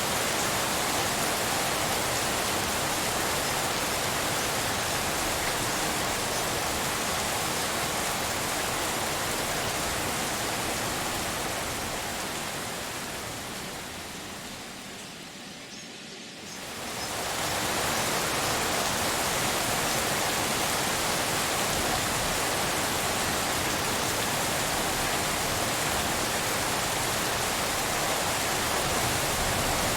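Steady pink-noise hiss of a rain soundscape, even across high and low pitches. A little past the middle it fades down over a few seconds, then jumps back up abruptly to full level.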